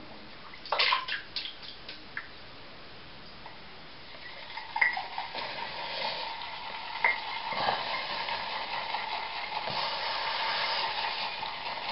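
A few light clicks early on, from the Merkur 25c safety razor being loaded. From about four seconds in, a steadily building swishing and crackling of a shaving brush working lather.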